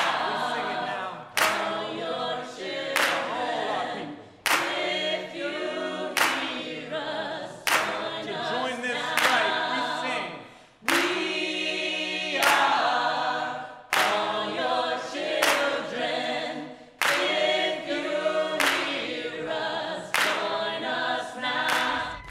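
A group of voices singing together in chorus without instruments, marked by a sharp hit about every second and a half, like a beat clapped along.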